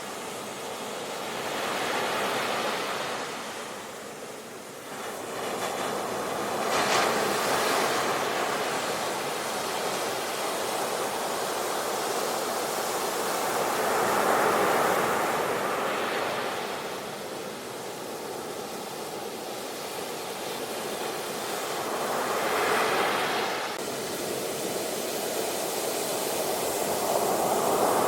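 Ocean waves breaking on a shore and washing back in foam, swelling every several seconds with a surge about 7 seconds in and another near the end.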